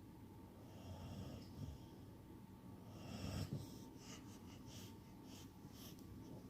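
A sleeping pet snoring softly: two slow, wheezy breaths, the second louder, followed by several short clicks.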